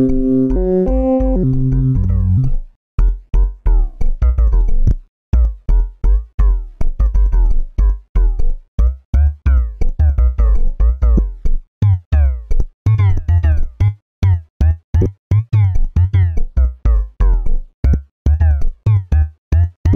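Electronic music: a few held synthesizer notes, then from about two and a half seconds in a choppy, stuttering beat of short synth stabs over deep bass hits.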